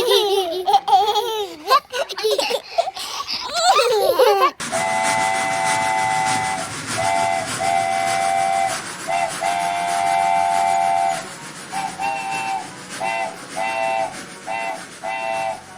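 A high, wavering voice sound, then about four and a half seconds in a train whistle starts: a steady three-note chord with a hiss of steam, blown as a few long blasts and then a run of short toots.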